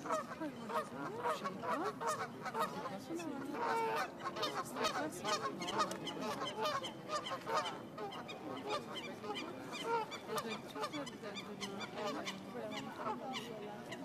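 A flock of geese honking, many short calls overlapping one another without a break.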